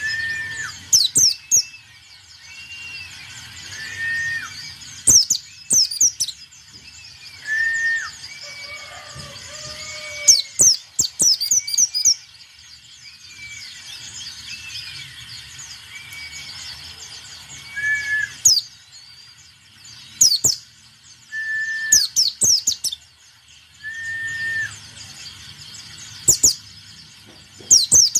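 Caged white-eye (pleci) singing in full voice: loud bursts of very high, fast twittering song come every few seconds, over a string of short, clear whistled notes repeated about once a second.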